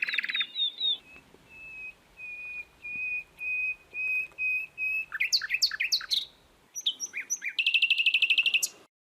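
Bulbul song: varied chirps, then a run of evenly spaced short whistled notes, then quick down-sliding notes and a fast trill that cuts off suddenly near the end.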